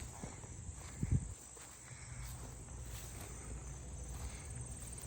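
Steady high insect trill, with a low rumble of wind or microphone handling and a single thump about a second in.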